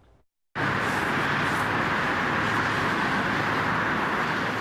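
Steady rushing outdoor ambience with a low hum underneath, starting abruptly about half a second in after a moment of silence.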